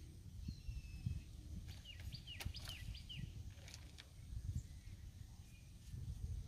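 Small birds chirping, with a quick run of short, falling calls about two seconds in, over a faint low rumble.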